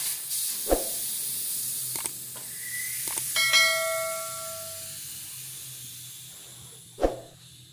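Air hissing out of a motorcycle tyre as it is let down, fading slowly as the pressure drops. A little past three seconds in, a piece of metal rings briefly, and there are single thumps near the start and near the end.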